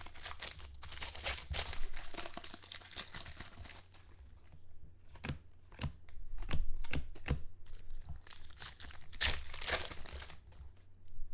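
Foil wrappers of trading-card packs tearing open and crinkling in the hands. After about four seconds the rustle gives way to a run of separate sharp crinkles and clicks as the packs and cards are handled.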